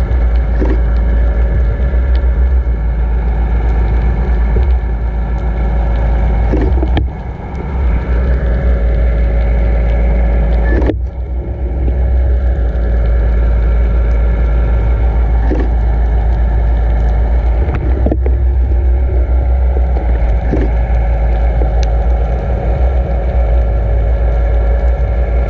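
Steady, loud low rumble of water rushing past a towed underwater camera housing, with a steady hum from the towing boat's motor carried through the water. The level dips briefly twice, about 7 and 11 seconds in.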